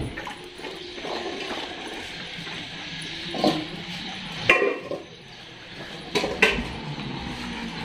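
Stainless steel dog bowls clinking and scraping on the tiled floor as dogs eat from them. Sharp metallic clinks come about three and a half seconds in, again a second later, and twice in quick succession near the end.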